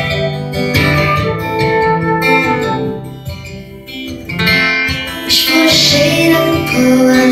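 An acoustic guitar and a flute playing together, the flute holding long notes over the guitar. About three seconds in the flute drops out, and the guitar plays on alone, louder in the second half.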